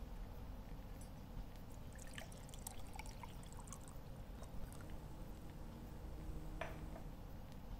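Faint liquid being poured, a scatter of small drips and splashes for a couple of seconds, then a single short sound near the end over a low steady hum.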